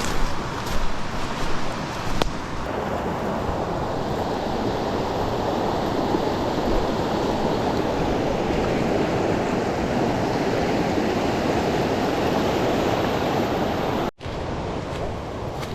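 Creek water rushing steadily, with a few light clicks in the first couple of seconds and a momentary break near the end.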